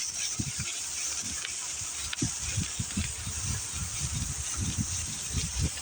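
Bicycle tyres rolling through snow and slush with a steady hiss, while wind buffets the microphone in low, irregular thumps.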